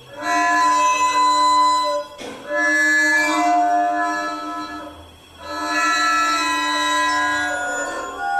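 Long string installation sounded by hand-stroking along the strings: sustained, organ-like chords of several steady high tones. It comes in three long strokes, with short dips about two and five seconds in as one stroke ends and the next begins.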